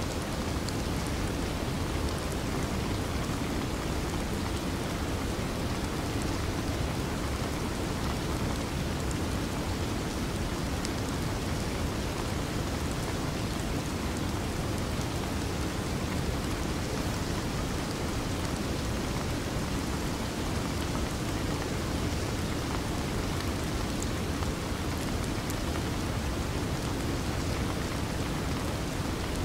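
Steady rain: an even hiss with a low rumble under it, and now and then a faint high tick of a drop.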